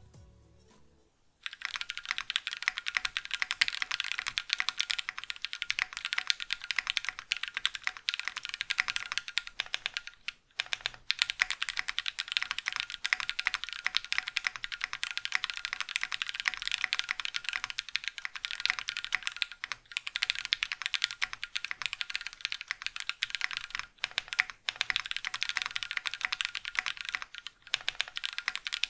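Fast, continuous typing on a mechanical keyboard with Gateron Slate linear switches lubed with 205 grade 0, in a Brutal 60 with an FR4 plate: a dense run of key clacks with no leaf-spring ping. The typing starts about a second and a half in, with a few brief pauses.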